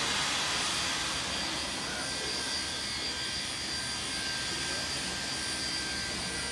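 Steady hiss of escaping steam from NSWGR C35-class 4-6-0 steam locomotive 3526, easing off slightly over the few seconds.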